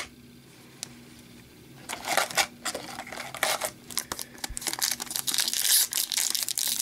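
Foil trading-card packs crinkling as they are handled and pulled from the box, starting about two seconds in after a couple of soft clicks.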